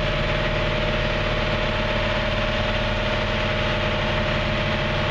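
Boat engine idling steadily: an even low hum with a steady tone over it.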